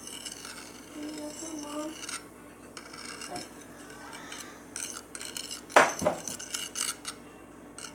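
A utensil scraping and clinking against a plate while stirring glue into slime, with one sharper, louder knock a little under six seconds in.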